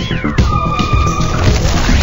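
Loud title-sequence music with a pounding low beat; a high pitch swoops up and back down at the start, a held high tone follows, and near the end it swells into a dense noisy wash.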